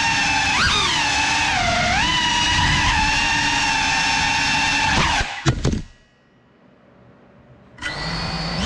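Electric motors of a 3.5-inch CineLog35 FPV cinewhoop drone on a 6S battery, whining and shifting pitch up and down with the throttle. After about five seconds a few sharp knocks and the whine winds down as it crashes, and after about two seconds of near silence the motors start again and spin up.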